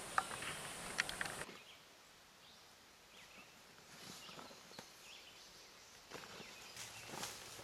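Rustling and crinkling of a fabric stuff sack and its contents being handled, with scattered short clicks. A faint high steady tone cuts off abruptly about a second and a half in, after which the rustling is quieter.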